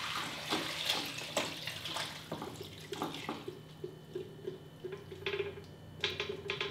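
Homemade chicken soup being poured from a stainless steel stockpot into a glass bowl: broth splashing and gurgling with the soft slop of vegetables and chicken pieces.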